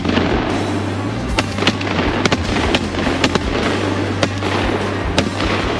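A volley of shotgun shots, about nine sharp bangs in irregular quick succession, over background music.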